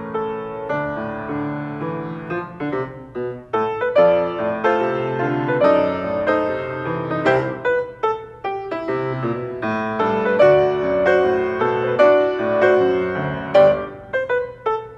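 Piano music: notes struck one after another with chords underneath.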